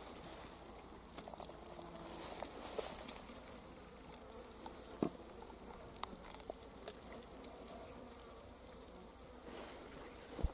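Mesh fish trap shaken out over a metal bucket: the netting rustles and a few sharp taps and knocks sound as small fish drop into the bucket and flap.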